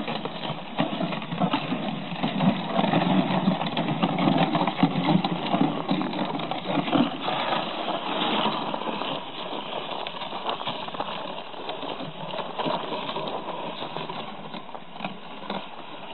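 A sled's runners scraping and grinding over packed snow, mixed with boots crunching in the snow. The scraping runs on steadily, a little louder in the first half.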